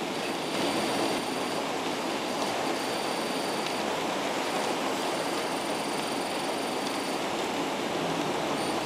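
Heavy thunderstorm rain beating steadily on a bus's roof and windows, heard from inside the cabin, with a faint high whine that comes and goes.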